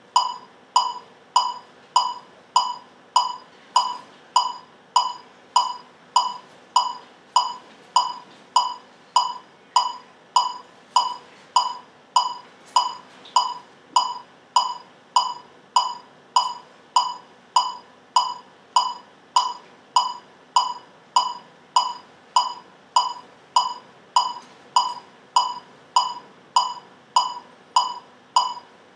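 Steady electronic metronome clicks, about three every two seconds, each a short sharp beep at the same pitch, keeping an even beat.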